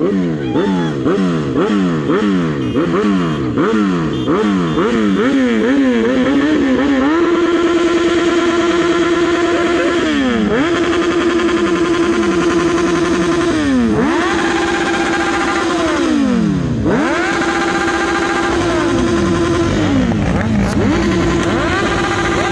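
Motorcycle engine revved over and over, rising and falling about twice a second. It then holds at high revs in long steady stretches, dropping away and climbing back several times.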